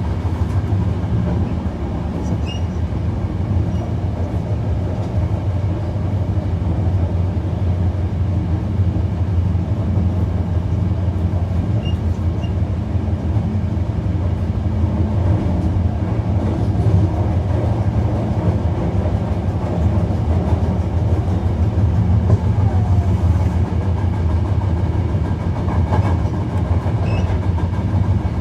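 Hankyu 1300 series electric train running between stations, heard from inside the car: a steady, even rumble of wheels and running gear on the track.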